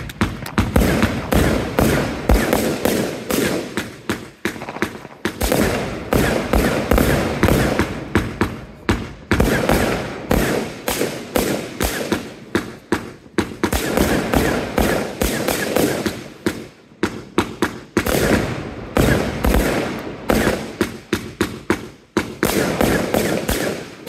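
Aerial fireworks bursting overhead in a rapid, near-continuous run of bangs and crackles, several a second.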